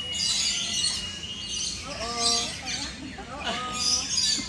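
A busy chorus of birds chirping and calling, with a steady high whistle that stops about a second and a half in.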